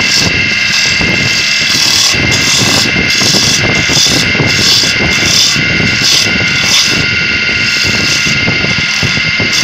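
Wood lathe running with a cutting tool shaving a spinning wooden spindle: a steady machine whine over the rough, uneven scraping of the cut.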